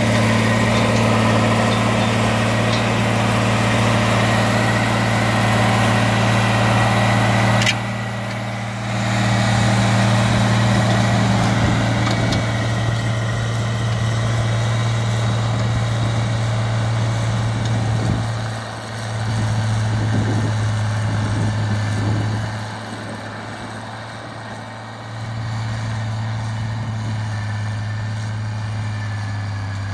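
John Deere 4020 tractor's six-cylinder engine working under load as it pulls a five-bottom plow, a steady low drone that grows fainter in steps as the tractor moves away.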